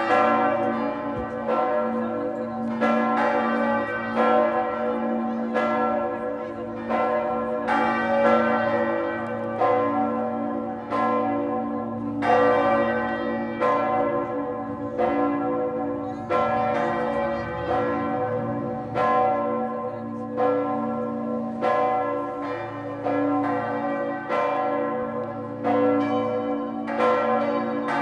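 Several church bells of different pitches swinging and ringing together in a full peal. Their strikes overlap in an uneven run of one or two a second, and each stroke rings on into the next.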